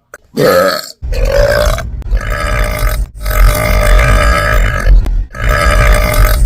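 A woman belching: a short burp, then three long, loud, deep belches of about two seconds each, one after another with brief pauses between them.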